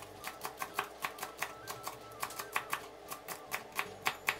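Chef's knife slicing spring onions on a wooden cutting board: quick, even chops, about four a second.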